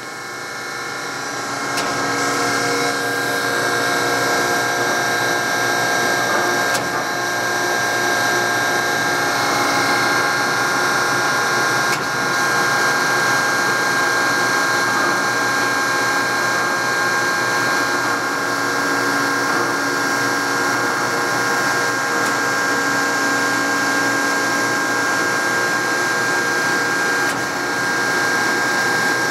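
Hanchett VR Series knife grinder running, its grinding-wheel motor and hydraulic drive making a steady whine as the grinding head strokes down the length of the table. The sound builds over the first couple of seconds, then holds steady.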